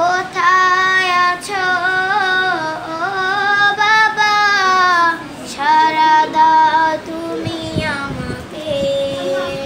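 A child's solo voice singing a Bengali gazal, unaccompanied, in long held notes with a slight waver.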